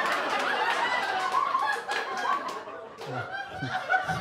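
Audience laughing and chuckling, with indistinct talk mixed in.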